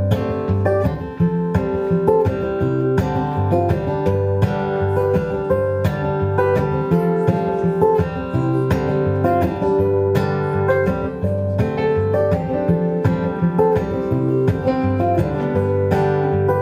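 Acoustic guitar playing a steady, rhythmic instrumental pattern of plucked notes over a repeating bass note.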